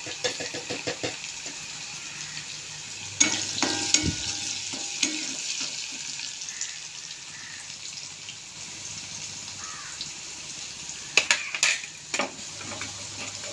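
Chopped shallots, garlic, green chillies and curry leaves sizzling steadily in hot oil in a metal kadai as they are sautéed to brown. A spoon stirs and scrapes against the pan a few times, around three to five seconds in and again near the end.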